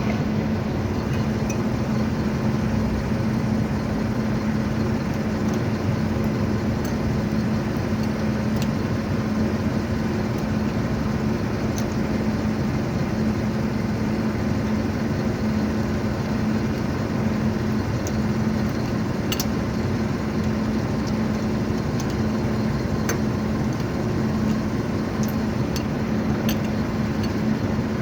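Tow truck engine idling steadily, with a few light clicks scattered over it.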